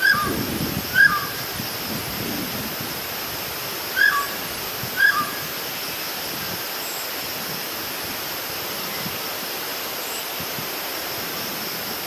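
Common hill myna calling: four short whistled calls, each dropping in pitch, in two pairs about a second apart, the second pair coming about four seconds in. A steady hiss lies underneath.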